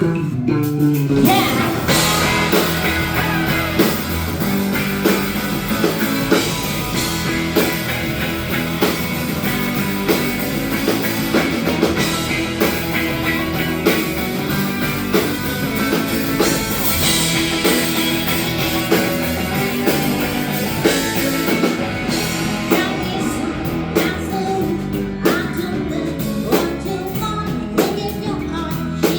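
Rock band playing a song with singing over guitar, bass and drums.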